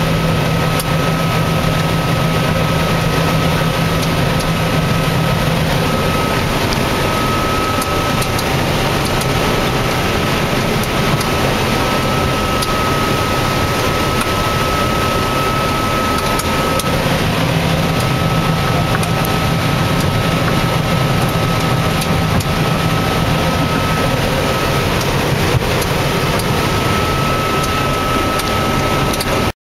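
Cab noise of a John Deere 9600 combine harvesting corn: the engine and threshing machinery run steadily, with a constant high whine over a low hum. It cuts off abruptly near the end.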